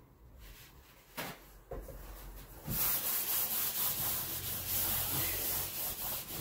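Paper towel rubbed and wiped back and forth over a tabletop, a steady rough swishing that starts a little before halfway, after a couple of light knocks from handling things on the table.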